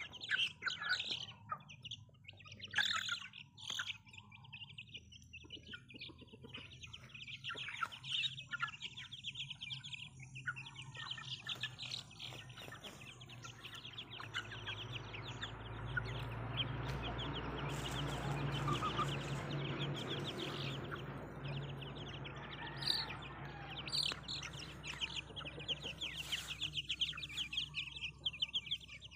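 Chicks peeping rapidly and near-continuously, with occasional clucks from adult chickens. A low rumbling noise swells in the middle and then fades.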